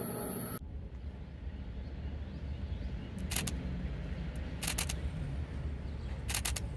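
Steady low outdoor rumble with three short clusters of sharp clicks, roughly a second and a half apart. A steady hiss cuts off abruptly about half a second in.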